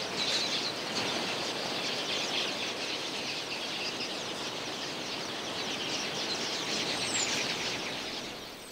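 A vast flock of red-billed queleas calling all at once, a dense, steady mass of twittering that fades out near the end.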